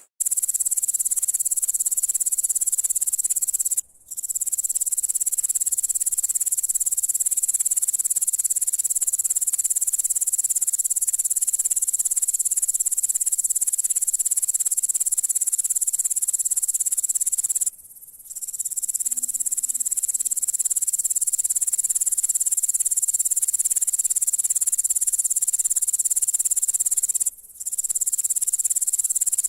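Grasshopper chirping: a continuous high-pitched buzzing song that stops briefly three times, the longest pause about two thirds of the way in.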